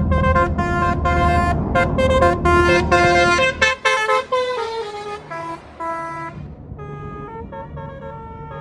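Tour bus's multi-tone 'telolet' Basuri musical horn playing a quick run of short notes over the bus's engine rumble. After about three and a half seconds the engine rumble drops away and the horn notes go on fainter.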